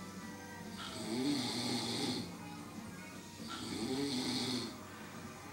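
A person snoring, two long snores about two and a half seconds apart, each with a tone that rises and then falls, over a hissy, whistling breath.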